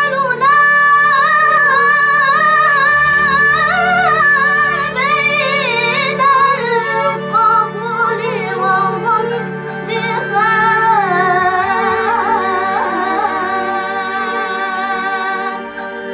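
A girl singing a slow Arabic sholawat melody in long, ornamented held notes with vibrato. Under her voice runs a steady low backing tone that shifts pitch about eleven seconds in.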